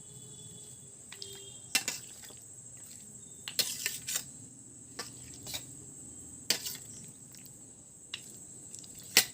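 A few light, scattered clicks and knocks of kitchen utensils against a container, spaced irregularly, the sharpest near the end.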